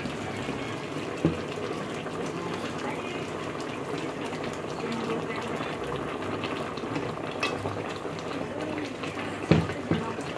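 Water pouring into a pot of simmering brown stew chicken, a steady pour over the bubbling of the pot. A short knock comes about a second in and two more near the end.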